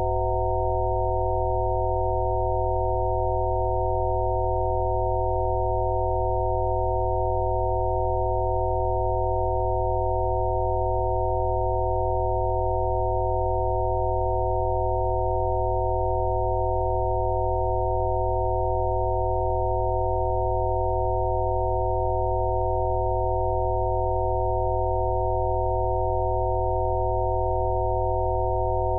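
Electronically generated Rife-frequency sine tones: several steady pitches sounding together, with a low drone beneath, held constant without any change.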